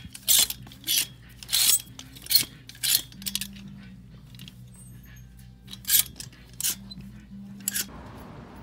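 Clear plastic clothes hangers clacking against each other and the rack as shirts are pushed along it, in a string of sharp clacks mostly in the first three seconds, with a few more later.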